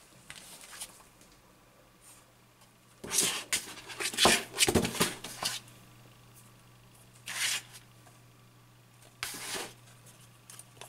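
Handling noise from a Zorki-4 35mm rangefinder camera body and its take-up spool being moved about on a table: rustling, scraping and light clicks, most of them bunched together about three to five seconds in, with two shorter bursts later.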